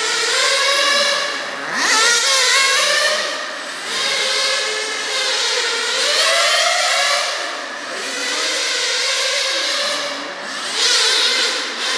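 Two Kyosho V-One 1/10-scale nitro RC touring cars racing, their small glow-fuel engines whining high as they rev up and dropping off when the throttle is lifted, over and over. The pitch sweeps of the two engines overlap, and the sound dips a few times as they back off for corners.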